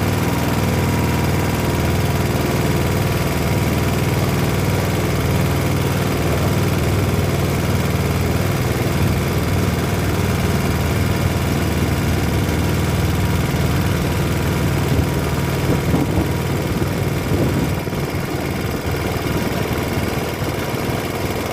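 Small 3.5 hp single-cylinder petrol engine running steadily, driving the rowboat along, a little quieter near the end. The engine is shaking enough that the owner says it needs fixing.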